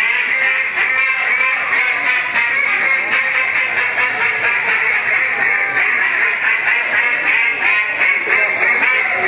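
Two hand-held duck calls blown together in a continuous run of rapid quacks and chatter, imitating live hen mallards in realistic 'meat' style calling.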